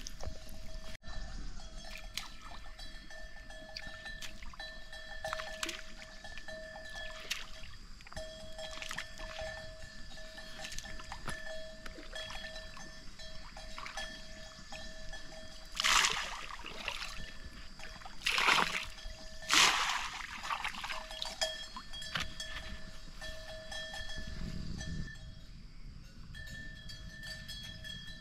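Three splashes of rice-noodle bait thrown into a pond, the last two about a second apart. A steady high-pitched drone runs underneath.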